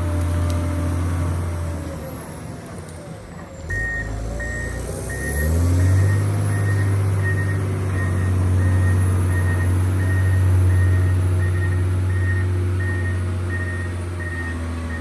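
John Deere 670 GP motor grader's diesel engine running under load. The engine note drops off for a couple of seconds, then the reversing alarm starts beeping about twice a second and the engine picks back up as the grader backs up.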